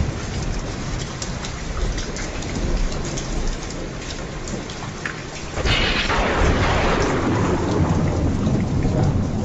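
Steady rain falling, with individual drops ticking on a surface. About halfway through a thunderclap breaks in suddenly and rolls on as a low rumble under the rain.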